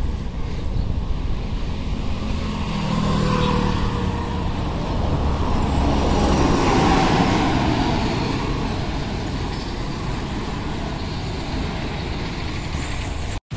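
Road traffic on a busy city road, with a Delhi Transport Corporation city bus passing close alongside: its engine grows louder from about three seconds in, is loudest a little past the middle, then fades into the steady traffic noise.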